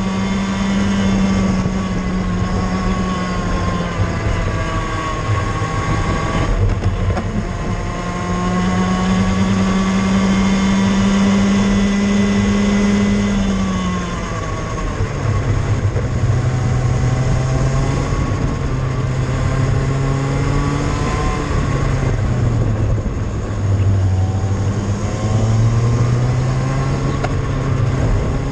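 A cadet kart's single-cylinder engine at racing speed, heard from a camera mounted on the kart. Its pitch climbs steadily along the straights and drops sharply into the corners, again and again, over steady rushing noise.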